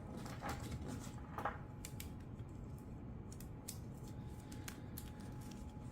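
Irregular light metallic clicks of a carbide chainsaw chain's links and cutters knocking together as the chain is handled by hand.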